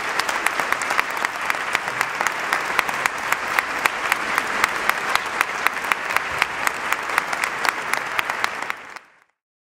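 Concert audience applauding, a dense patter of many hands with single sharp claps standing out; it dies away abruptly near the end.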